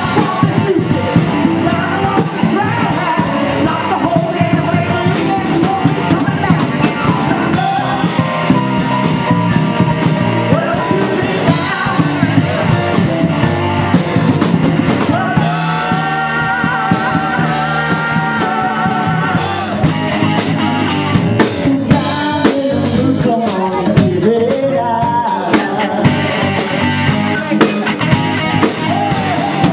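Live rock band playing a song: drum kit and electric guitar with lead vocals. The singing holds long notes for a few seconds in the middle.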